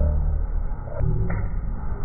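Steady low rumble with two short clicks about a second in.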